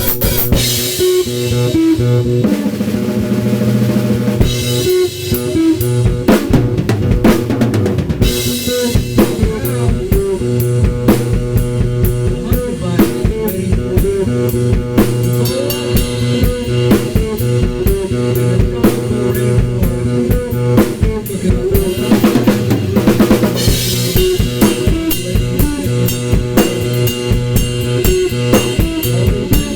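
Freely improvised drumming on a Gretsch and Ludwig drum kit: bass drum, snare with rimshots, and washes of Paiste cymbals that swell near the start, around a third of the way in and again about three quarters through. Steady held tones sound beneath the drums.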